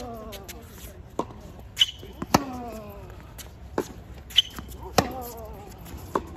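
Tennis rally on a hard court. Racket strikes on the ball come about every two and a half seconds, each followed by a short vocal grunt falling in pitch. Fainter ball bounces and the far player's hits fall between them.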